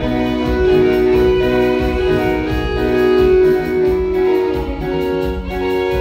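Live band playing an instrumental passage, with no singing: held, violin-like chords, most likely from a keyboard, over a bass line.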